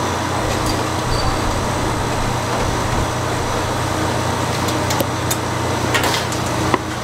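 Steady background din of a busy street-food stall, with a few sharp taps of a cleaver on a wooden chopping board in the last two seconds as cooked pork is sliced.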